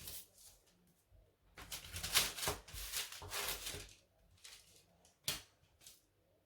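Sablé cookie dough being cut out with a cookie cutter and handled: rustling scrapes for about two seconds, then a single sharp tap about five seconds in.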